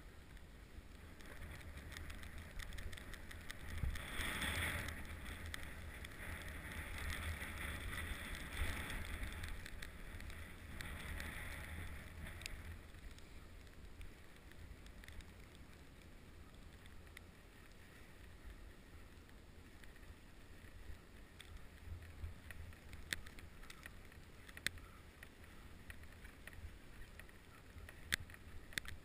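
Jack jump's single ski sliding over snow: a steady swishing hiss that swells for several seconds and then eases, with a few sharp clicks or knocks near the end.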